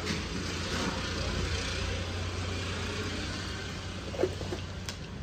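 Cumin seeds sizzling in hot cow ghee: a steady frying hiss that eases off toward the end, over a low steady hum, with a brief knock about four seconds in.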